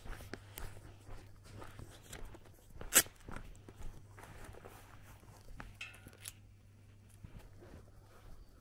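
Footsteps on a dirt lane, a scatter of small scuffs and crunches. There is one sharp, loud click about three seconds in, and a brief high-pitched squeak or chirp about six seconds in.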